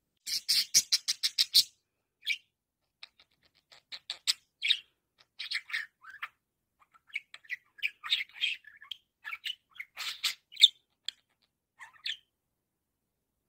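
Budgerigar chattering: a fast run of about ten sharp clicking notes in the first two seconds, then scattered short, high chirps and warbles that stop a little before the end.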